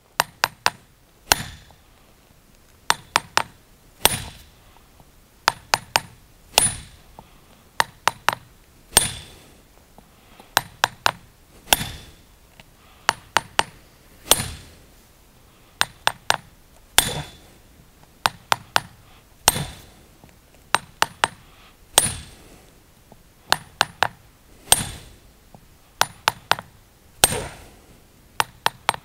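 A 1000 g club hammer striking a steel splitting iron set on a stone sett. The blows are light and steady, metal on metal with a high ring: two or three quick taps, then one harder blow, repeating about every two and a half seconds. The strikes build up energy in the stone until it splits, which takes little force but some time.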